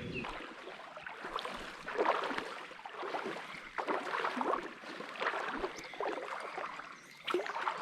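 Shallow creek water splashing and sloshing in a run of irregular splashes.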